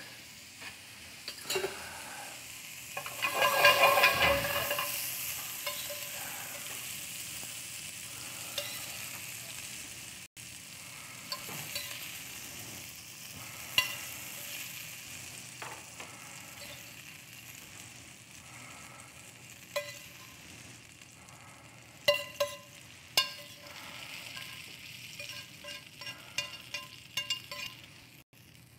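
Mycoprotein cubes, peas and carrot ribbons frying in olive oil in a stainless steel sauté pan: a steady sizzle that swells about four seconds in and then slowly fades. A few sharp metal clinks come in the second half as the pan is handled.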